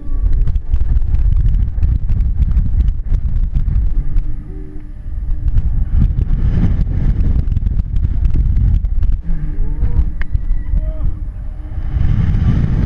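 Heavy wind rumble buffeting the on-ride camera's microphone as the giant pendulum arm swings through its arc. The rumble eases briefly about five seconds in and again near the end, where the swing slows at the top of its arc.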